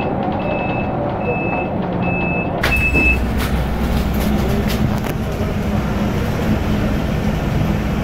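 An electric bus's door-warning beeper sounding a steady beep a little over once a second while the doors close, then a sharp click as they shut, about three seconds in. After that comes the steady low hum of the bus.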